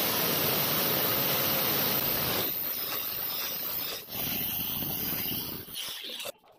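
DeWalt angle grinder with a diamond core bit boring a hole through a marble stair tread: a steady, harsh grinding noise. It drops to a lower level about two and a half seconds in and dies away to near silence shortly before the end.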